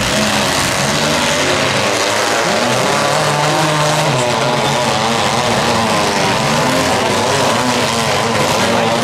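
Economy compact demolition derby cars' engines revving hard and steadily, the pitch rising and falling as the drivers get on and off the throttle.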